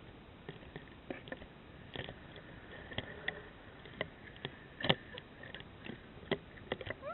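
Scattered clicks and light knocks over a low hiss, the loudest about five seconds in: handling and rattle of the jumper's body-worn camera and rope gear while she hangs and swings on the jump rope.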